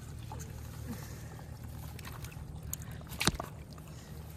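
Hands rustling through grass and handling a fishing line, with small scattered clicks and one sharp click about three seconds in, over a steady low rumble.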